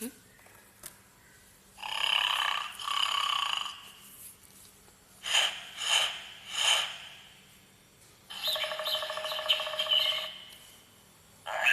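Recorded jungle animal calls played back by an electronic children's sound book: first a two-part call, then three short calls in quick succession, then a longer, buzzy call at one steady pitch, with short pauses between them.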